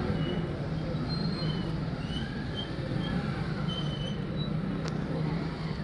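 Motorcycle engines running, a steady low hum under a general outdoor wash, with short high chirps scattered through it and one sharp click near the end.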